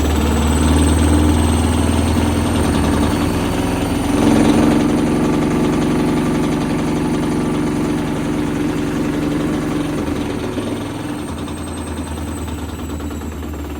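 Samsung washing machine running its drum, with a steady motor hum, a high whine that sinks in pitch near the end, and a knocking that the owner suspects means the motor is loose again.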